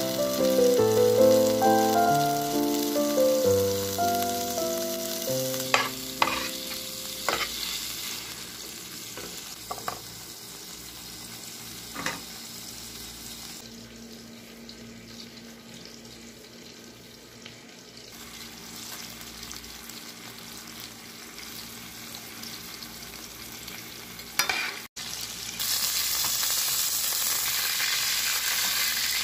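Background music plays a melody for the first few seconds, then a few sharp knocks and a quieter stretch of low hiss follow. Near the end, a ribeye steak sizzles loudly in foaming butter in a frying pan as the butter is spooned over it.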